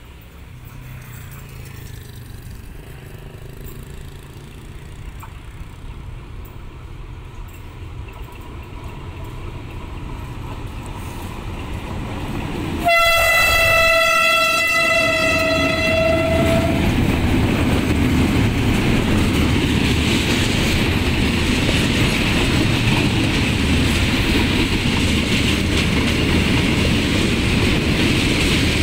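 A KTMB Class 29 diesel locomotive approaches with a rumble that grows steadily louder. About halfway through, as it passes, it sounds its horn on one pitch for about four seconds, with a short break near the start. A freight train of container wagons then rolls past with a loud, steady rumble and clatter.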